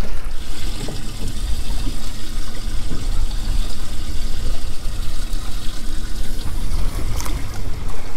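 Water trickling and splashing in a boat's live-bait tank as a bait fish is netted out, over a steady low rumble, with a short click about seven seconds in.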